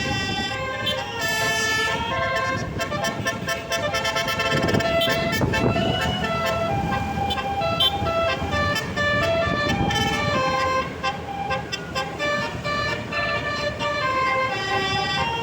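A bus's basuri, a multi-trumpet musical air horn of the telolet kind, plays a melody of held toots that step from note to note. A rumble runs underneath and swells around five seconds in.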